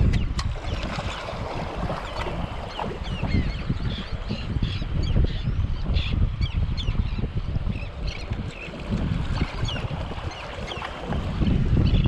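Wind rumbling on the microphone, with water lapping and splashing.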